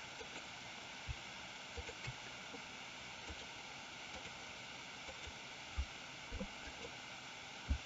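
Faint steady hiss with a few soft, short low taps scattered through it, from a computer mouse being clicked.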